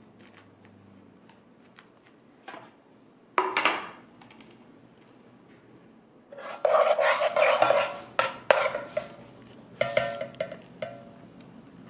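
Kitchen dish and utensil handling: a few light knife taps on a wooden cutting board, then louder clatters and a stretch of scraping of dishes and utensils with a ringing tone, in several bursts.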